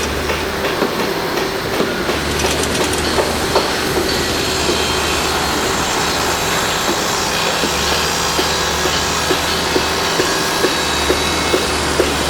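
Construction-site machinery noise: a steady mechanical din with a constant hum and rhythmic clanking knocks about twice a second.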